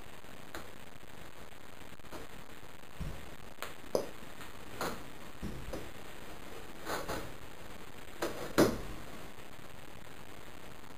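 Steady background hiss with a scattering of faint, short knocks and rustles about a third of the way in through to near the end.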